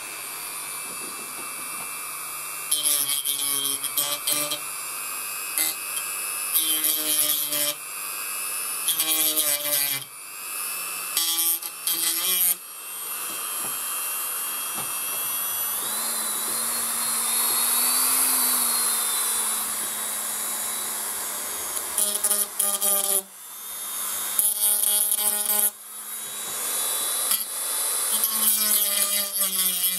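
Small handheld rotary tool running steadily, with repeated bursts of grinding a second or two long as it is pressed against the plastic radio case. Its motor pitch rises and falls briefly midway.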